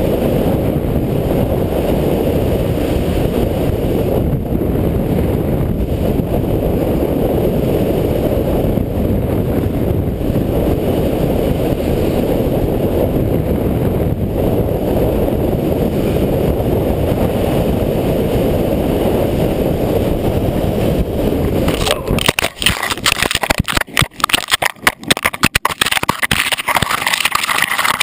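Steady rush of wind over a moving action camera while a snowboard slides downhill on packed snow. About 22 seconds in, this breaks into a quick, irregular series of hard knocks and crunches as the rider crashes in a collision and the camera tumbles into the snow.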